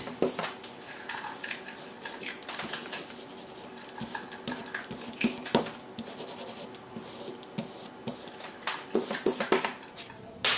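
Rubber brayer rolling printing ink across a carved linoleum block, giving a run of irregular clicks, taps and scrapes.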